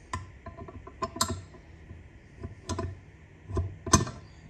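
Metal parts clicking and tapping as a high-low selector fork and its shaft are fitted into an aluminium Land Rover LT230 transfer case: about half a dozen sharp clicks, the loudest near the end.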